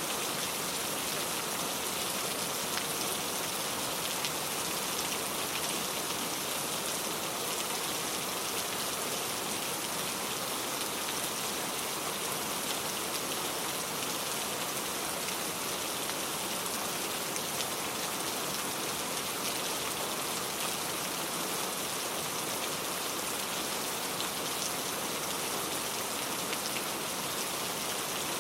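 Heavy rain falling steadily, a dense hiss of drops with fine scattered patter.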